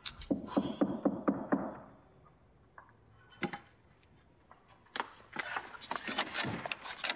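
Knocking at a door: a quick run of sharp knocks, a single knock a couple of seconds later, then a second, denser run of knocks and clicks near the end.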